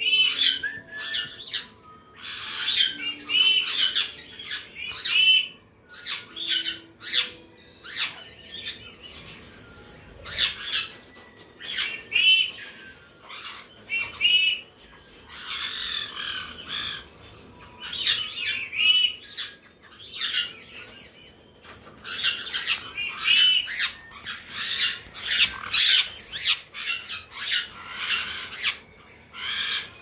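Caique parrots squawking: short, harsh, high-pitched calls coming in bursts, with a couple of quieter gaps.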